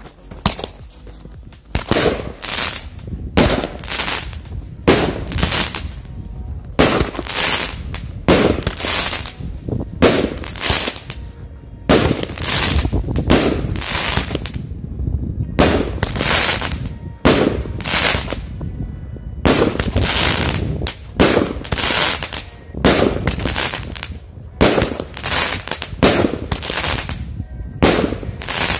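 A Bumbác 16-shot consumer firework cake firing: a fast run of loud bangs as the shells launch and burst, about one or two a second, starting about a second and a half in.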